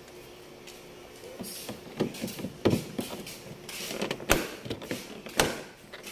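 Grey plastic interior trim panel of an Isuzu MU-X being pressed and tapped back into place by hand: several sharp knocks and clicks of the plastic starting about two seconds in, with rubbing between them.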